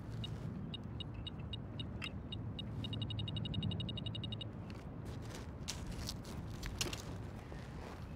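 Metal detector beeping in a steady pulse that quickens into a rapid run of beeps about three seconds in and stops a second and a half later: the signal of a metal target under the search coil. Then gravel and shingle crunch underfoot, over a low rumble.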